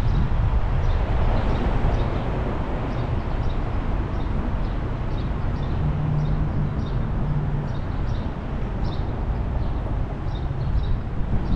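Steady low rumble of a car driving, with short, high bird chirps scattered throughout and a brief low drone about halfway through.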